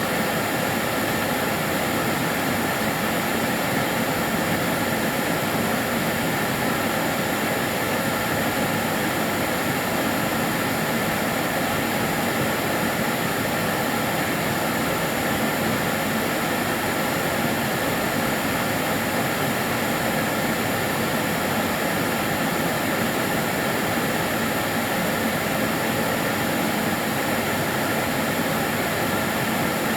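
Kärcher DS 6 Premium water-filter vacuum cleaner running steadily: an even, unbroken rush of motor and air noise with a few faint steady tones in it.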